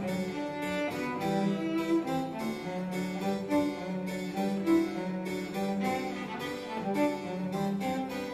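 Instrumental background music: harpsichord with bowed strings, a steady run of plucked notes over held lower string notes.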